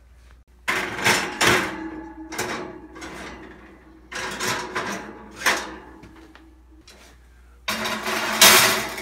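Metal clanking and scraping at an open electric oven as the seasoned cast-iron waffle iron parts are set on the wire racks. There are three loud, noisy stretches that each start suddenly, about a second in, about four seconds in, and near the end.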